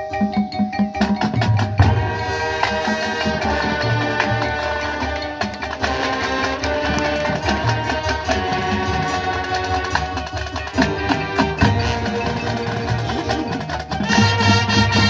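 High school marching band playing its field show: brass and woodwinds over front-ensemble mallet percussion and drums. The music swells louder near the end.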